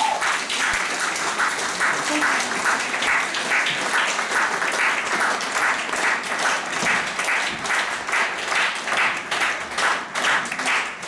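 Audience applauding, the clapping falling into a more regular beat near the end.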